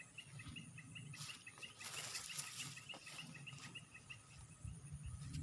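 A bird chirps rapidly and repeatedly, about five short two-pitched notes a second, and stops a little after three and a half seconds in. A burst of hissing noise comes in the middle, over a faint low rumble.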